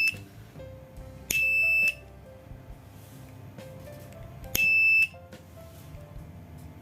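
5 V electronic buzzer of a homemade fire alarm circuit sounding a steady high tone in short beeps of about half a second: one ending right at the start, then two more about a second and a half and four and a half seconds in. Each beep is the circuit's photodiode detecting fire and switching the buzzer on.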